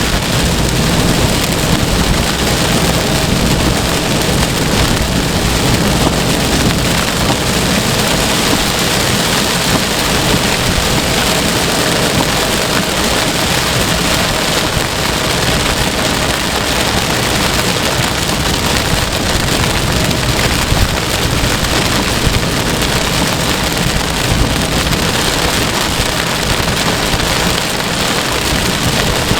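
Heavy rain falling steadily, a continuous even hiss of drops.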